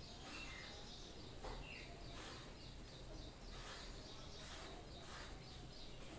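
Faint scratching of a felt-tip brush pen colouring on paper, in soft repeated strokes, with faint bird chirps in the background.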